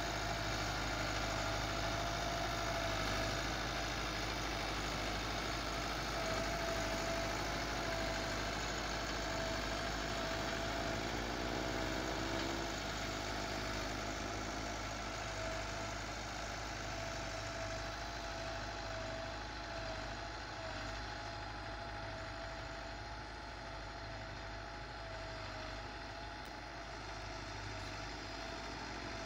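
Massey Ferguson 385 tractor's diesel engine running steadily under load while pulling a tillage implement through the soil, with a constant whining tone, slowly fading as the tractor draws away.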